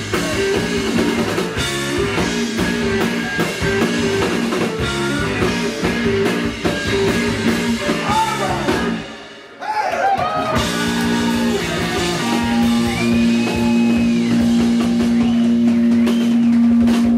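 Live blues band playing: electric guitar and drum kit with a woman singing. About halfway through the band briefly drops out, then holds one long chord while her voice slides and wavers over it, cut off sharply at the end.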